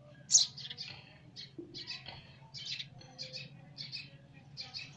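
House sparrow fledgling chirping: short high chirps, about two or three a second, the loudest one near the start.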